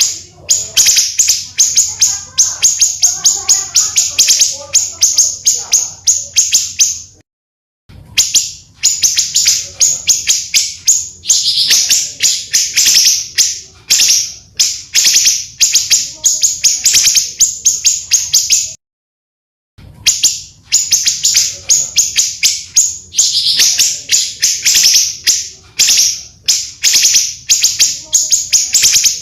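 Small songbirds singing long runs of rapid, harsh chirps and rolling trills, one note after another at several a second. The recording is spliced, with two short dead-silent breaks, about seven seconds in and again near nineteen seconds.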